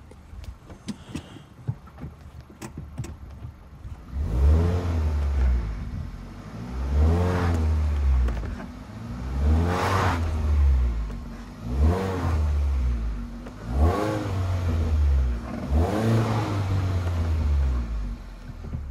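Hyundai Solaris petrol four-cylinder engine, fitted with a Kia Ceed GDI variable-geometry intake manifold, idling and then revved in six short blips about two seconds apart, starting about four seconds in. It revs cleanly with no knock from the intake-manifold flap, a knock the owner cured by retuning the flap control rather than replacing the manifold.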